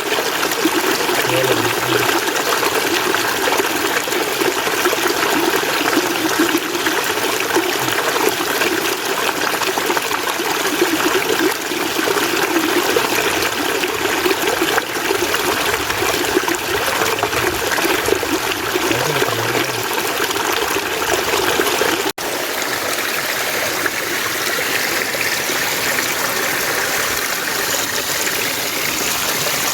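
Mountain stream water running steadily. About two-thirds of the way through there is a sudden break, after which the water sound goes on with a slightly different, brighter character.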